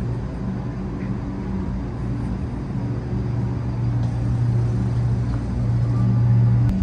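A steady low machine hum, growing louder over the last few seconds and cutting off suddenly near the end.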